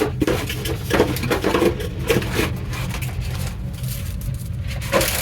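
Hands handling the packaging and contents of a boxed CD set: irregular rustling, light taps and knocks, over a steady low hum.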